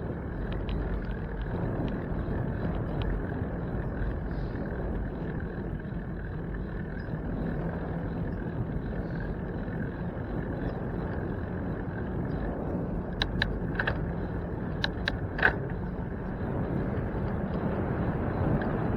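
Steady rumble of road and wind noise from riding a bicycle, with a few sharp clicks about two-thirds of the way through.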